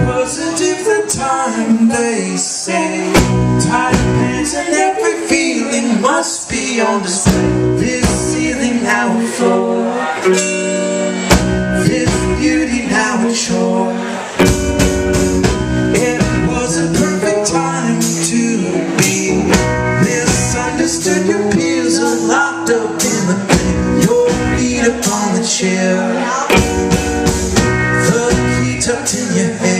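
Live band music: electric guitars and drums, with keyboard and cello.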